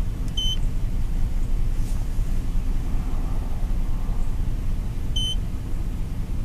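Engine idling, heard as a steady low rumble inside a pickup truck's cab. Two short high beeps about five seconds apart come from the aftermarket car-stereo head unit as it powers on.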